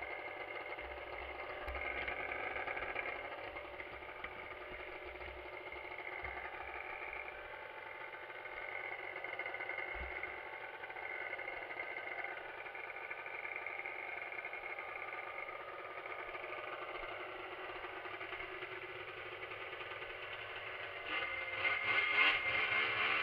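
Arctic Cat ZRT 600 snowmobile's three-cylinder two-stroke engine idling steadily, then revving up louder near the end as the sled pulls away.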